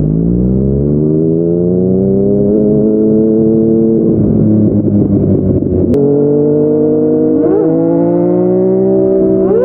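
Yamaha MT-09 three-cylinder engine through a Yoshimura R55 slip-on exhaust, heard while riding. The revs rise over the first two seconds and then hold; about six seconds in a sharp click comes as the pitch drops to a lower, steady note, an upshift into the next gear.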